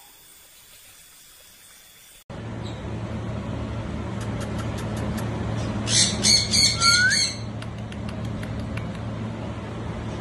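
Budgerigar giving a quick run of about five sharp squawking chirps about six seconds in, over a steady low hum.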